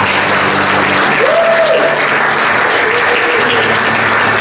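Congregation applauding, with the worship band's held notes sounding steadily underneath.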